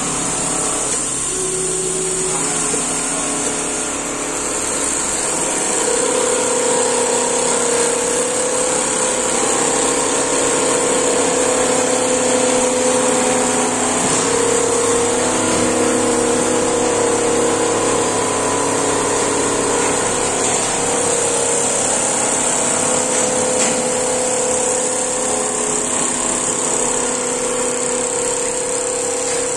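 Computer-controlled single-head quilting machines running: a steady mechanical drone from the stitching heads and their drives, with humming tones that shift and come and go as the heads move, over a constant high hiss.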